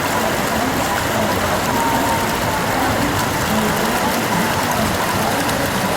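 The Ganges' current rushing steadily, a dense, unbroken wash of water noise.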